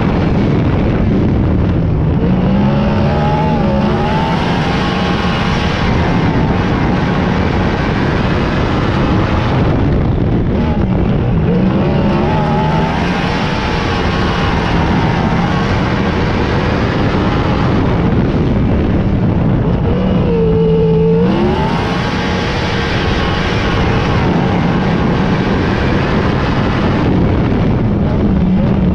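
Several sprint car engines racing around an oval, their pitch falling off and rising again roughly every eight to nine seconds as the cars come off and back onto the throttle through the corners. About two-thirds of the way through, one car's engine stands out loudly as it dips and climbs.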